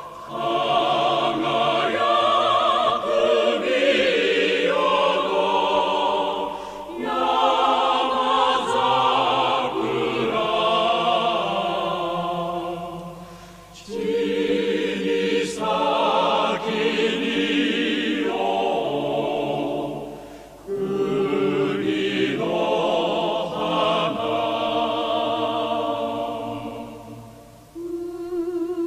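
Choral singing with a marked vibrato, in long slow phrases that fade and break about every seven seconds.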